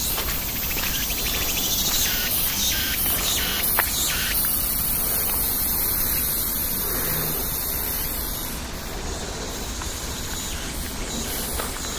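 Outdoor summer ambience: insects chirring steadily at a high pitch, strongest through the middle seconds, over a constant background hiss.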